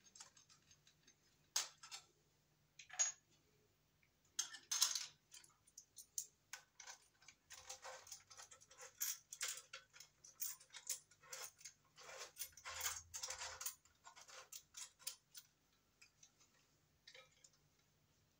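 Faint, irregular small clicks and rattles from hands working the light's junction box and a Romex cable connector being fitted into its knockout hole. The clicking comes in clusters, densest through the middle and thinning out near the end.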